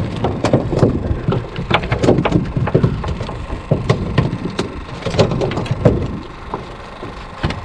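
Rapid, irregular clattering and knocking of hard objects, thinning out about six seconds in.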